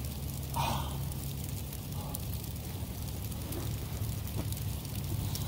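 Steady rain falling, with many small drops ticking and dripping close by over a low, even rumble.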